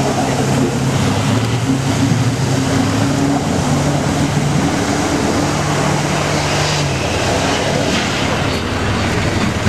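Off-road SUV's engine working hard at steady revs as it drives through deep floodwater, with the rush and splash of water thrown up by the wheels. A little past halfway the engine note rises briefly, then drops back as the vehicle climbs out onto the bank.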